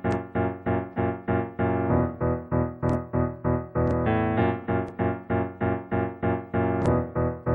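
Music: short chords struck over and over at about three a second, with a few sharp clicks on top.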